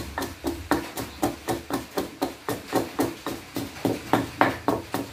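Pestle pounding chili and salt in a mortar: rapid, even knocks, about four a second.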